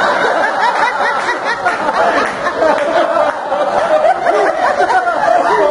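Stand-up comedy club audience laughing at a joke, many people laughing together.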